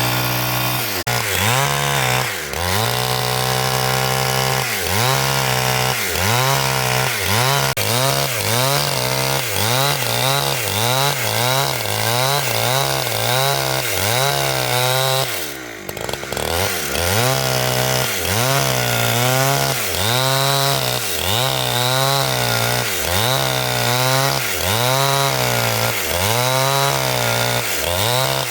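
Two-stroke chainsaw cutting wood, the engine revving up and down over and over, about once a second, with a brief dip about halfway through.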